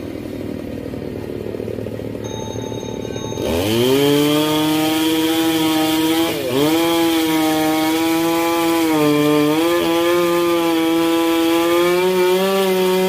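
Two-stroke petrol chainsaw revving up about three and a half seconds in, then running at high speed as it cuts through a tree limb, its pitch wavering under load with one sharp dip partway through. It cuts off suddenly at the end.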